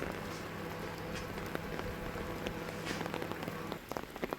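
Steady rainfall with many individual drops ticking on surfaces. A steady low hum runs underneath and stops near the end.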